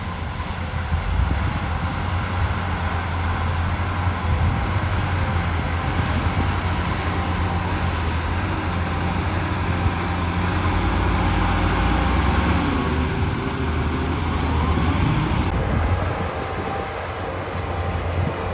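Heavy diesel earthmoving machinery running steadily with a strong low engine rumble. It eases off slightly near the end.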